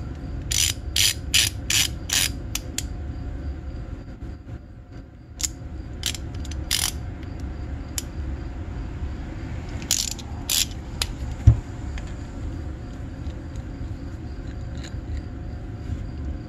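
Hand ratchet with a 5/16 socket working the fittings on a snowmobile oil injection pump: short bursts of ratcheting strokes, a quick run of about six about a second in, more around the middle, and one dull thump a little past the middle.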